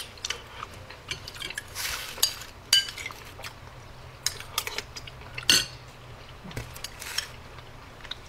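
Spoons clinking and scraping against bowls as people eat chili at a table, in scattered irregular clicks and short scrapes.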